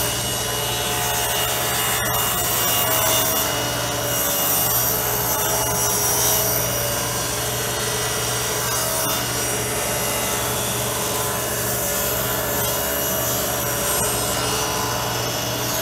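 Rockwell 10-inch Unisaw table saw running steadily while it rips a wooden strip plank, its blade tilt being changed mid-cut for a progressive bevel. The saw cuts without straining as the bevel changes.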